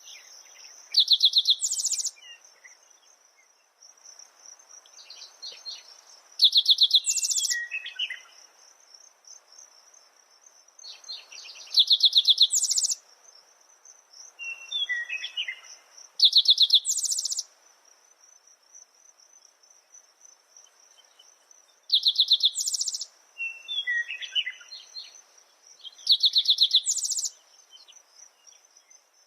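Parrots calling: a loud, harsh call of about a second repeats roughly every five seconds, each followed by softer chirps, over a steady high insect trill.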